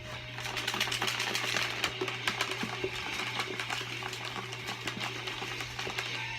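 Rapid, irregular mechanical clicking and rattling, running on over a low steady hum.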